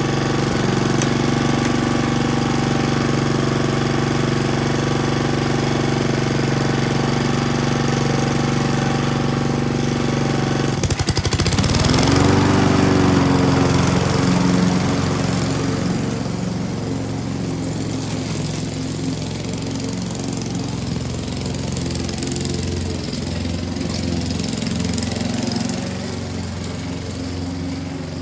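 Walk-behind push lawn mower's small engine running steadily. About eleven seconds in its pitch rises as it speeds up, and from about sixteen seconds it grows quieter as the mower moves away across the lawn.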